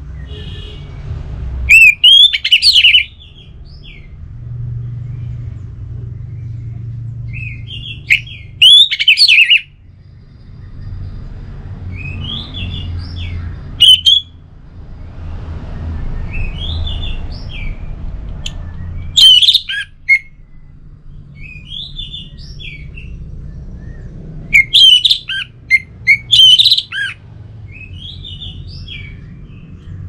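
Orange-headed thrush singing: loud bursts of rapid, varied whistles and chirps, each a second or two long and a few seconds apart, over a steady low rumble.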